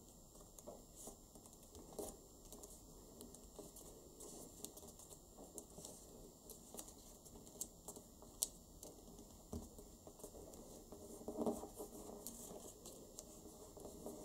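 Faint crackle and rustle of origami paper being folded and creased by hand, with many small clicks and ticks from fingers working the paper. A louder rustle comes about eleven seconds in.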